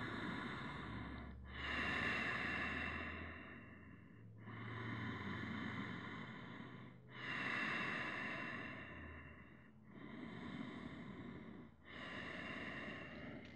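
A man breathing slowly in and out through the nose, about three full breaths with each inhale or exhale lasting two to three seconds.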